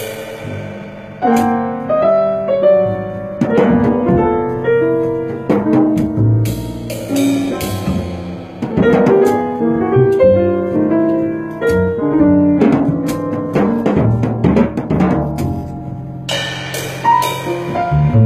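A small jazz group plays: piano and drum kit with cymbal strokes under a line of held, changing melody notes, in a group with alto saxophone and guitar.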